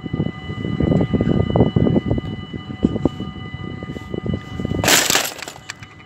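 Dutch level-crossing warning bells ringing steadily with the barriers down, over loud, uneven low rumbling. About five seconds in comes a short, loud hiss lasting about half a second.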